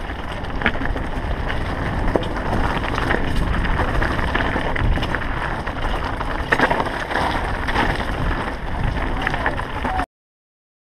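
Mountain bike descending rocky, gravelly singletrack: tyres crunching over stones and the bike rattling and knocking, with wind buffeting the helmet-camera microphone. The sound cuts off abruptly near the end.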